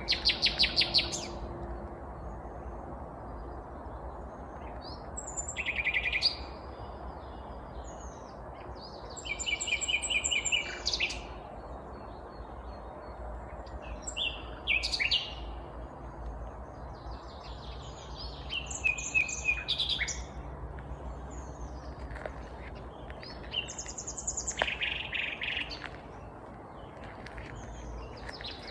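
A nightingale singing: about six loud phrases a few seconds apart, each a rapid run of repeated notes, over a steady low background rumble.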